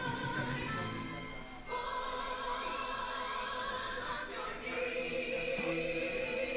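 Background music of sustained, choir-like sung notes, the held chord shifting to new pitches twice.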